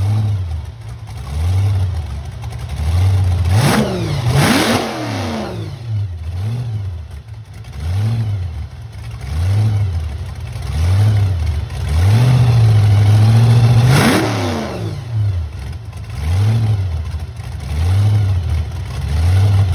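Supercharged big-block V8 in a rat rod, revved over and over in short blips about every second and a half. There is a sharp higher rev about four seconds in and a longer held rev from about twelve to fourteen seconds.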